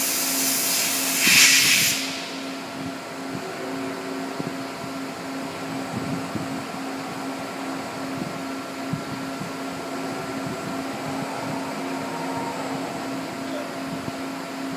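Five-axis waterjet cutting jet hissing loudly as it cuts, swelling just before it shuts off about two seconds in. After that a steady machine hum remains, with scattered light clicks as the cutting head moves.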